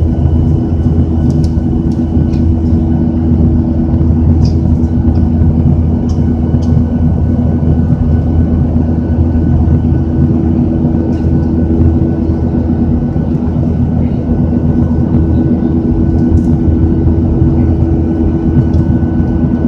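Steady drone of a Boeing 737's jet engines and rushing air heard from inside the cabin during the climb after takeoff, with a low hum and a few steady tones held through it. A few faint clicks come and go.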